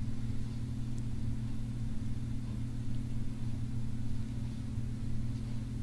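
A steady low hum that does not change, with faint hiss above it and no other sound.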